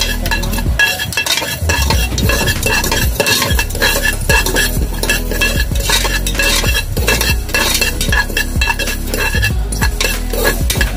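Metal spoon scraping and stirring mustard and fenugreek seeds roasting in an aluminium pressure cooker, with many small clicks and crackles as the seeds heat and splutter.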